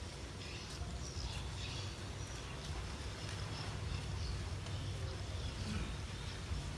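Outdoor ambience: scattered faint, short chirps from small birds or insects over a steady low rumble.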